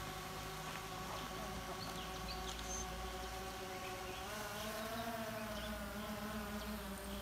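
Small camera drone flying overhead, its propellers making a steady buzzing hum. About four seconds in the pitch rises and wavers as the motors change speed.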